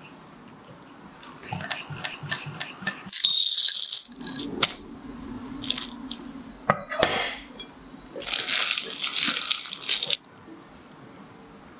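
A small whisk scrapes and taps against a ceramic bowl as matcha powder is mixed with cream. Then comes a bright rattle and clinking, then a few sharp clicks over a low hum. A wire whisk then scrapes hard through cream cheese and white chocolate chips in a pot, and the scraping stops suddenly near the end.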